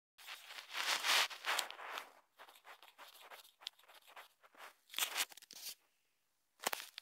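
Handling noise on a phone's microphone: irregular rustling and scraping, dropping briefly to near silence about six seconds in, followed by a few sharp clicks.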